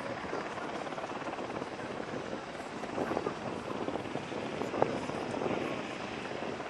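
Steady noise of a UH-60 Black Hawk helicopter running, with a crowd talking over it and one sharp click a little under five seconds in.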